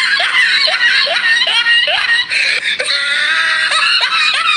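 A shrill, high-pitched voice in short rising yelps, one every half second or so, then a held note: squealing laughter or screaming.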